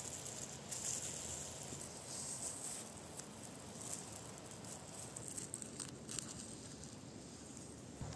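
Vinyl electrical tape being pulled off its roll in several short pulls and wound around a plastic bag, with the plastic crinkling.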